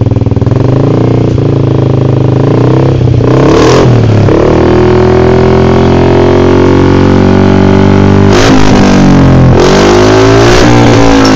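Yamaha NMAX 155 scooter's single-cylinder four-stroke engine running through an aftermarket Proliner exhaust. It idles and is revved, the exhaust note rising and falling with the throttle a few times.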